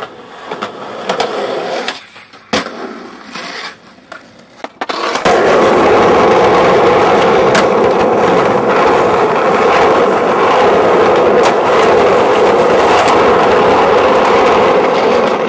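Skateboard wheels rolling over asphalt, a loud steady rumble that sets in about five seconds in and runs on evenly. Before it, a few sharp clacks, the loudest about two and a half seconds in.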